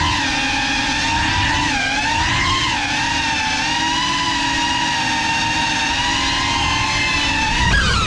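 GEPRC Cinelog 35 cinewhoop's brushless motors and ducted propellers whining steadily in flight, the pitch wavering as the throttle shifts. Near the end the whine drops in pitch with a brief louder moment.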